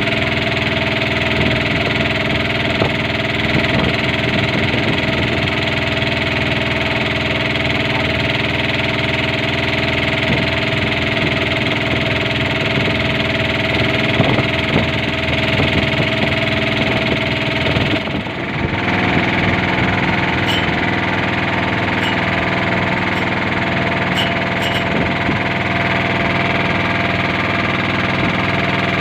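Small boat engine running steadily under way. About two-thirds of the way in there is a brief drop, and the engine's tone settles into a slightly different pitch.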